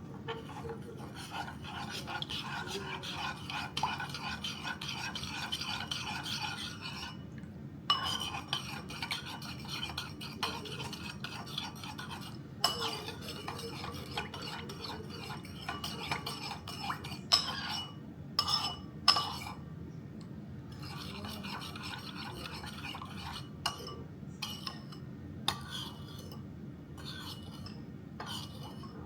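A spoon stirring orange Kool-Aid powder and sugar into pineapple juice to dissolve it, a fast, even scraping in stretches of several seconds. Over the second half it turns into scattered sharp clinks of the spoon against the container.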